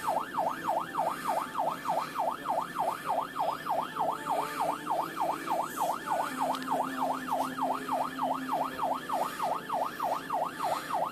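Police car siren on a fast yelp, its pitch sweeping up and down about three and a half times a second.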